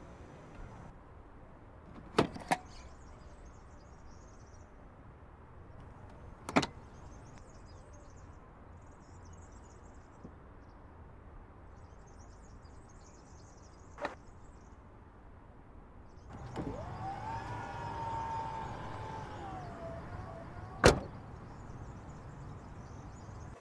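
Power tailgate of a Mercedes GLE 500e SUV closing. An electric motor whine rises, holds and falls over about four seconds, then ends in a sharp latch thump. Earlier come a few separate clicks and knocks.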